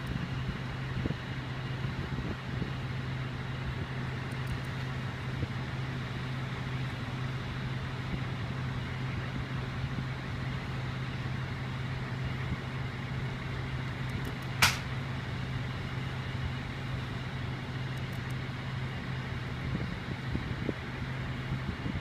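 Vehicle engine idling steadily with a low hum, and one sharp click about two-thirds of the way through.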